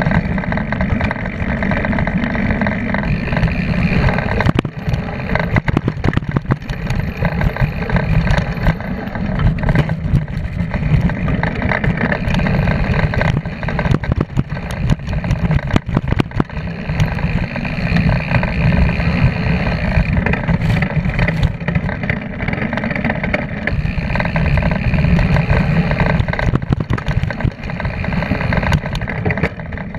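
Mountain bike descending a dirt trail at speed: wind rumbling on the bike-mounted camera's microphone over the tyre rolling on dirt, with frequent sharp rattles and knocks from the bike over bumps.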